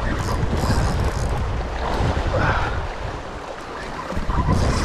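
Wind buffeting the microphone over the wash of ocean waves, a steady rumbling roar with no distinct tones.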